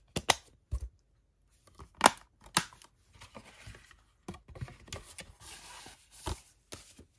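Plastic Blu-ray keep cases and discs being handled: scattered clicks and snaps, the sharpest about two seconds in, with a short sliding rub about five seconds in.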